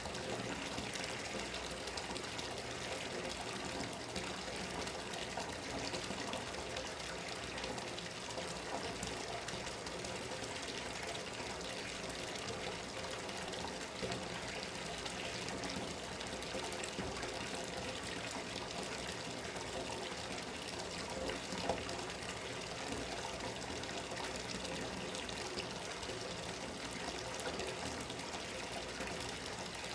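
Bathtub tap running steadily, water pouring into the tub.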